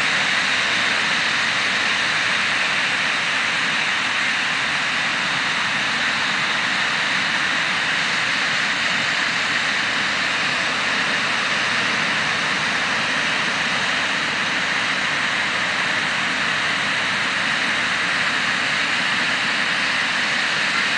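A steady, even rushing noise that holds at one level, with no swells, breaks or distinct events.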